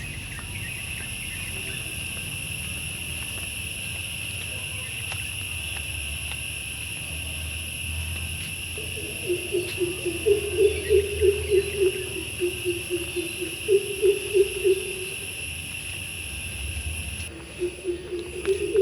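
Insects shrilling steadily on a high pitch, fading about three seconds before the end. A bird gives a deep, hooting call repeated about three times a second, from about nine seconds in to fifteen and again near the end.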